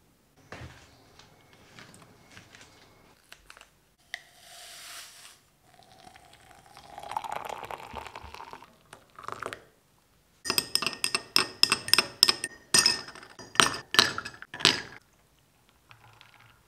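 Coffee poured into a drinking glass, then ice cubes dropped in, a rapid series of loud clinks against the glass with a ringing tone. Near the end comes a faint pour of milk.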